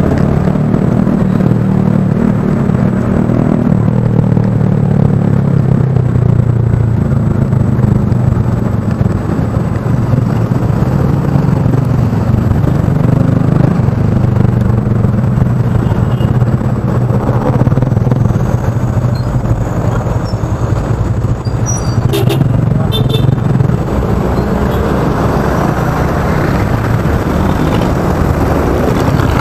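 Motorbike engine running steadily while riding through traffic, with wind buffeting the microphone. A few sharp clicks about three-quarters of the way through.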